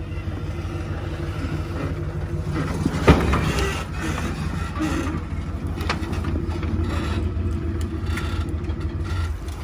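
Ford Bronco's engine running at a low crawling idle as the rig creeps down off a rock ledge, with a sharp knock about three seconds in as the vehicle drops onto the rocks and a few lighter clicks after.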